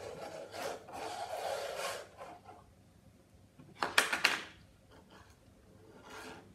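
Plastic sand moulds rubbing and scraping on a tabletop for the first two seconds or so, then a quick run of sharp knocks as a mould is set down about four seconds in, and a softer knock near the end.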